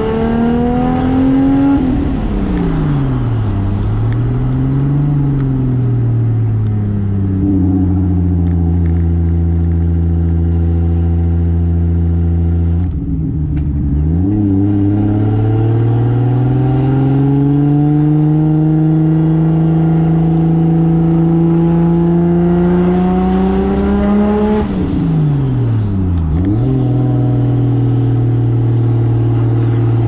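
Single-turbo Toyota 2JZ straight-six in a Soarer driving through an R154 manual gearbox. The revs climb, fall sharply, then hold steady at a cruise. They dip briefly, climb slowly for about ten seconds, and fall away again a few seconds before the end.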